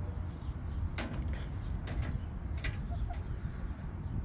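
Backyard hens pecking, with three sharp beak taps spread over a couple of seconds over a steady low rumble.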